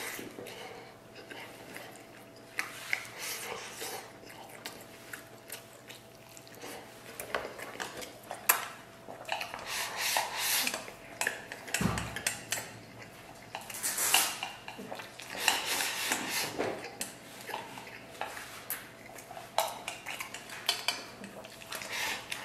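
Eating at close range: chewing on a pork rib at first, then wooden chopsticks clicking and scraping against a stainless steel bowl held to the mouth, with quick sharp clinks through the second half.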